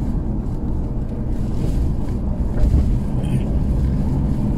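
Toyota Hilux pickup driving at a steady speed, heard from inside the cabin as a steady low rumble of engine and road noise.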